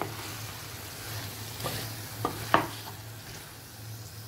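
Chicken and bottle gourd curry sizzling in a steel pot as a wooden spoon stirs it, with a few sharp knocks of the spoon against the pot, the loudest about two and a half seconds in.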